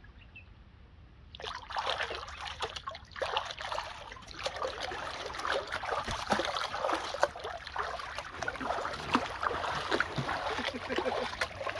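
Water splashing and running, starting suddenly about a second and a half in as a dense stream of small splashes and trickling.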